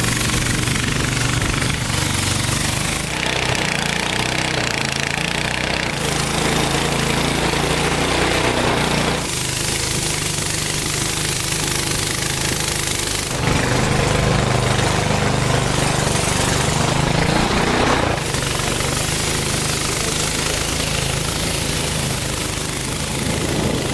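Small outboard engine on a wooden river boat running steadily under way, a low rattling drone over the rush and hiss of water from the wake; the mix of engine and water changes abruptly several times.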